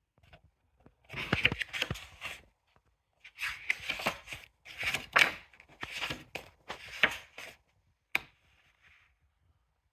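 Sketchbook pages being turned and handled: paper rustling in several bursts, with a short sharp snap about eight seconds in.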